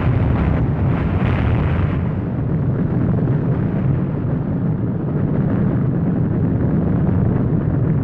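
Sound effect of a huge explosion's aftermath: a loud, continuous rumble. Its upper hiss dies down over the first couple of seconds, leaving a deep, steady roar. It stands for the nuclear power plant blowing up.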